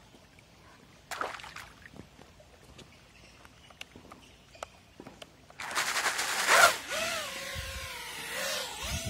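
A waterproofed 6S FPV quadcopter drops into shallow stream water with a splash about a second in and lies there. Near the end its brushless motors (2306.5, 1880KV, run on a 4S battery) spin up, first churning the water loudly, then settling into a motor whine that wavers up and down in pitch as the throttle changes.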